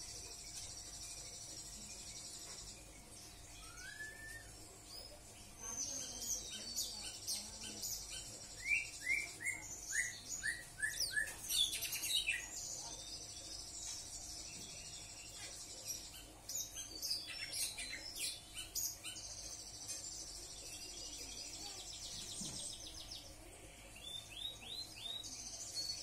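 Sanger birds singing: long, high, buzzy trills that each last a few seconds, broken up by short chirps and, about halfway through, a quick run of falling notes.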